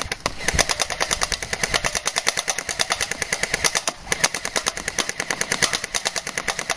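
Airsoft Thompson M1A1 submachine gun firing long full-auto bursts of BBs, a rapid even rattle of shots. There is a brief pause about four seconds in before it fires again.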